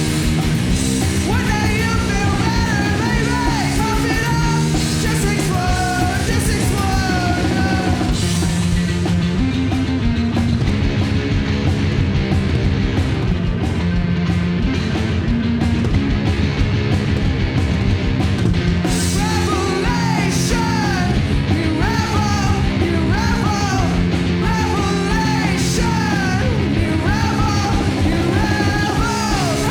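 Live punk rock band: electric guitar, bass guitar and drums playing fast and loud, with a woman's sung and yelled lead vocal. The vocal drops out for an instrumental stretch of about ten seconds in the middle, then comes back.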